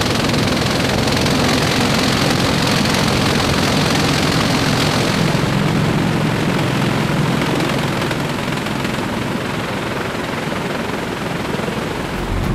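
Steady, loud in-flight noise of a CH-53E Super Stallion's rotors and engines. About halfway through the sound turns duller, as heard from the open cargo ramp of a nearby aircraft.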